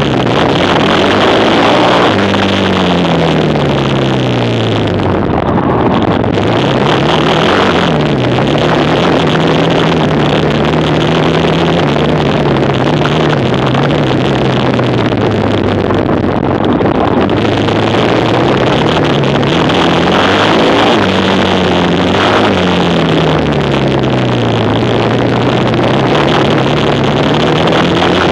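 Racing quad bike's engine running hard and continuously, its pitch falling and rising several times as it slows and accelerates, with a long steady stretch in the middle.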